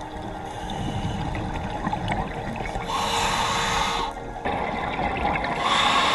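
Underwater sound of scuba diving: bubbling from exhaled air leaving a diver's regulator, in two louder bursts of about a second each, over steady watery noise.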